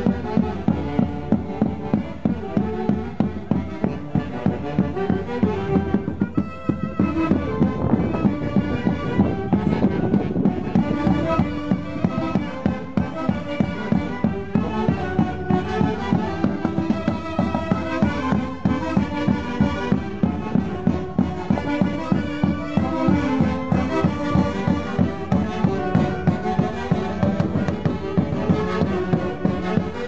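Live Andean orquesta playing festive dance music over a steady beat.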